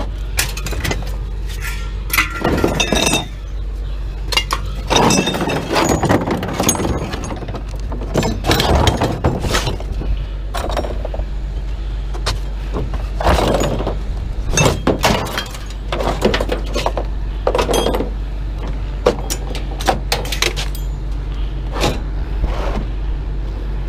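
Scrap metal being thrown out of a pickup truck bed: repeated clanks, clatters and crashes of metal pieces landing on the pile, over a steady low rumble.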